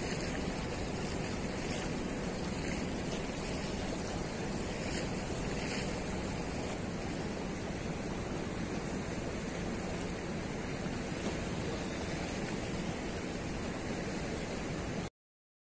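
Steady rush of a fast river current pouring out below a weir's gates, an even roar of water with no break. It cuts off abruptly shortly before the end.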